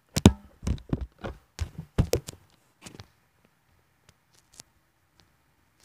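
Handling noise: a run of knocks and thumps as the laptop and camera are moved about, loudest in the first two seconds, then a few faint clicks.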